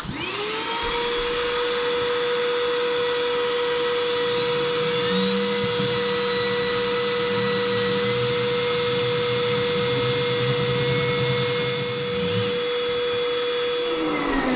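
Electric drill spinning up and running at a steady high speed while drilling a hole for electrical cable, with a lower hum joining from about five to twelve seconds in; it winds down near the end.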